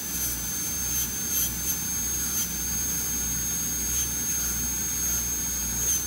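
High-speed dental handpiece running, a steady high-pitched whine over a hiss, as the bur cuts deeper into the isthmus of a Class II cavity preparation.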